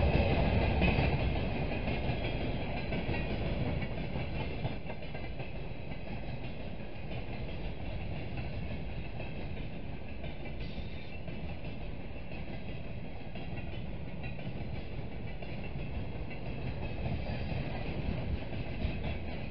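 Freight train of railway tank cars rolling past: steady noise of wheels running on the rails. It is a little louder in the first few seconds, then holds level.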